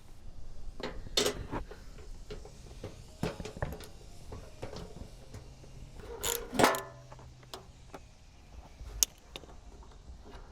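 Irregular clicks and knocks of plastic car trim and hand tools being worked loose, with a louder clatter about six and a half seconds in and a sharp click about nine seconds in.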